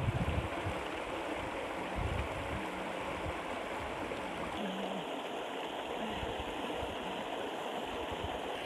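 Shallow river rushing steadily over rocks and small rapids, with a few low thumps near the start.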